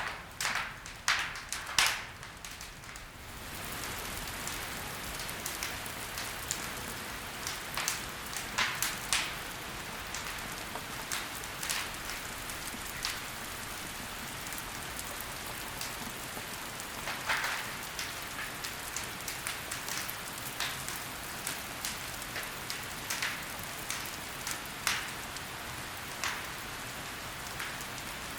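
Wood fire crackling: a cluster of loud sharp pops in the first few seconds, then a steady hiss from about three and a half seconds in, with scattered crackles and pops over it.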